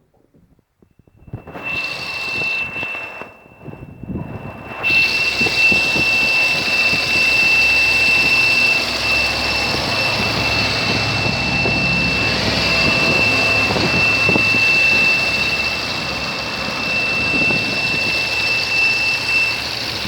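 Opel Astra J 1.6 engine running with a steady high-pitched whistle from under the bonnet over the engine noise. The whistle starts about a second in, drops out for a moment a few seconds later, then holds one pitch.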